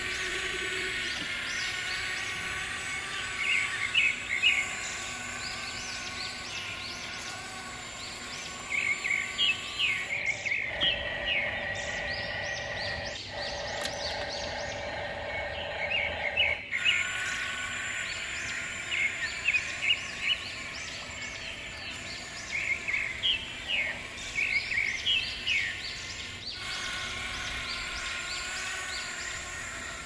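Small birds chirping in quick clusters every few seconds over a steady outdoor hum of even tones. The background changes abruptly twice, at about 10 and 17 seconds in.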